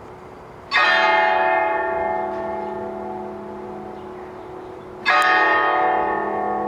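Large Russian Orthodox church bell struck twice, about four seconds apart. Each stroke rings on in many tones and fades slowly.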